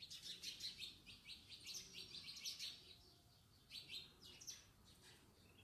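Hot oil crackling faintly around breaded prawn balls deep-frying, a quick irregular run of small pops with a brief lull about three seconds in.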